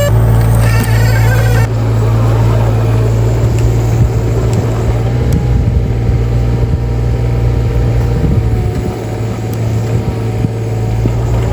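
Heavy-machinery engine, likely the excavator, running steadily with a strong low hum.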